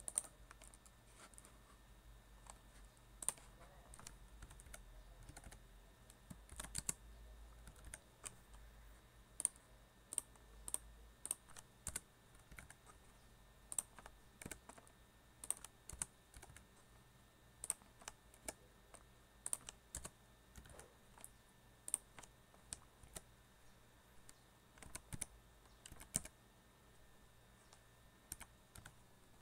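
Typing on a computer keyboard: faint, sharp key clicks coming irregularly, a few at a time with pauses between.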